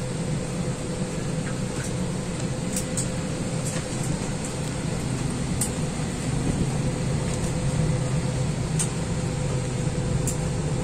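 Steady cabin hum inside an Airbus A320 airliner: a constant low drone of engines and air-conditioning with a faint steady tone, and a few light ticks scattered through it.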